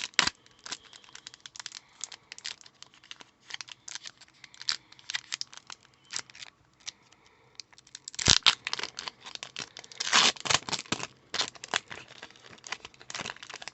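Foil Pokémon booster-pack wrapper crinkling and tearing, with trading cards being handled: a continuous run of crackles and rustles, loudest about eight and ten seconds in.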